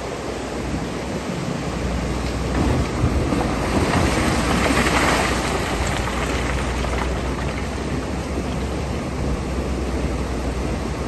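Excavator engine running with a low steady hum under a rush of water, the water growing louder for about two seconds around four seconds in.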